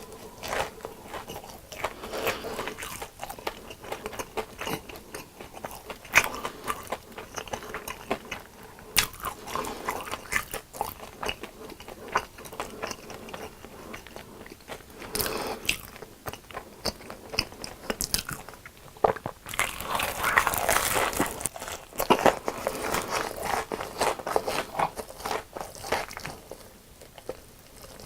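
Close-miked biting and chewing of crunchy fried food: repeated sharp crunches of breaded crust, with a busier run of crunching about two-thirds of the way through.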